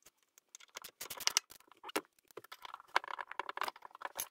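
Wrench working the hex bolts of a metal floor bracket: a run of quick, irregular clicks and light metallic rattles, thickest about a second in and again around three seconds in, with a sharp click near the end.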